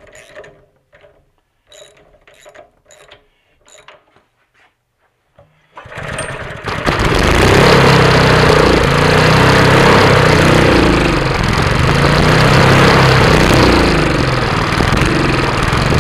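Honda GX160 single-cylinder four-stroke engine rope-started without its recoil: after a few faint handling clicks it catches about six seconds in and keeps running loudly, its speed rising and falling. It runs only with the choke on, a fault the owner suspects comes from plugged, gummed-up carburetor jets.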